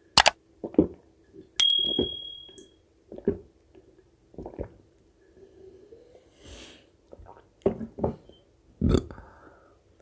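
Close-miked eating sounds: short mouth and handling noises every second or so. About one and a half seconds in, a dish clinks and rings briefly.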